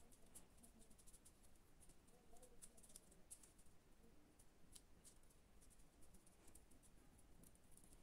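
Faint crinkling of a narrow strip of origami paper being folded and pinched between fingers: a scatter of small, crisp, irregular ticks.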